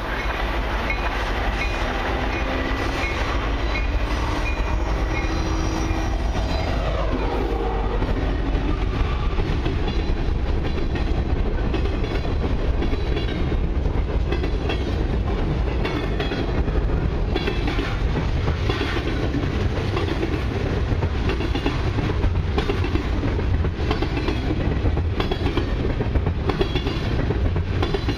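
Diesel locomotives of a freight train approach and pass close by, their engine sound dropping in pitch about seven seconds in. A long string of freight cars then rolls past with a steady rumble and a regular clickety-clack of wheels over the rail joints.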